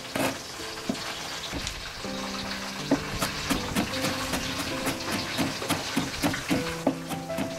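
Cleaver chopping ginger on a wooden cutting board: quick irregular knocks, about two to three a second, over background music.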